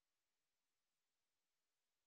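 Near silence: the sound track is essentially empty, with only a faint even hiss.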